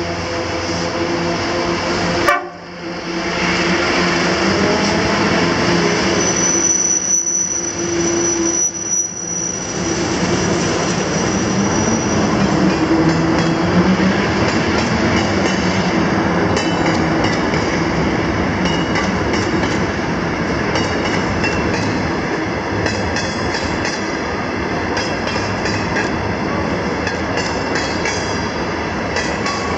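Diesel freight locomotive running past with a steady engine drone, then a long rake of loaded ballast hopper wagons rumbling and clattering over the rails on a curve. A high wheel squeal is held for several seconds near the start, and there is a brief sharp crack about two seconds in.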